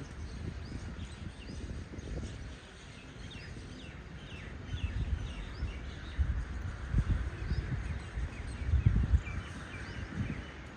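Many small birds chirping, a dense run of short, quick falling chirps, over a low rumble with bumps that gets louder in the second half.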